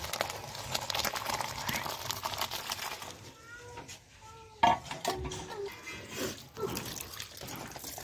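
Water poured over chopped spinach in a steel colander set in a bowl, splashing and draining through for the first few seconds as the spinach is rinsed. About halfway through, a single sharp knock is the loudest sound, just after a few short high calls.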